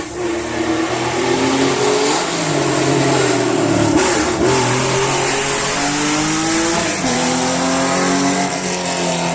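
Air-cooled flat-six of a historic Porsche 911 rally car accelerating hard. Its pitch climbs through each gear, with upshifts about two, four and seven seconds in.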